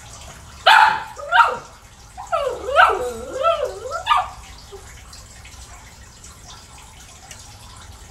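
Small dog barking and yipping a run of short calls, some sharp and some wavering in pitch, over about three and a half seconds, then stopping: barking out the answer to a "two plus two" counting cue.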